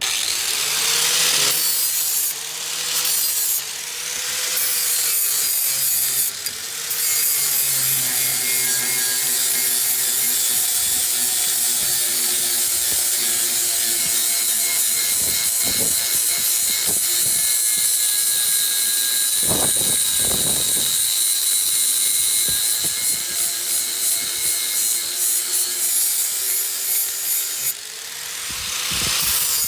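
Angle grinder running and grinding the cutting edge of a steel lawn mower blade, taking out nicks and burrs. The grinding eases off briefly a few times in the first several seconds and comes in short pulses near the end.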